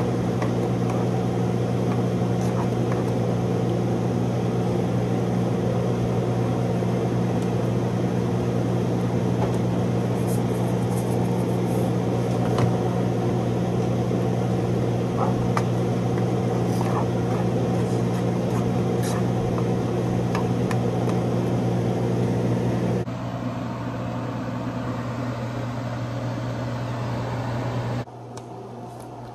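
A steady hum from a running kitchen appliance, with a low, even drone and a few faint clicks. The level drops abruptly twice near the end.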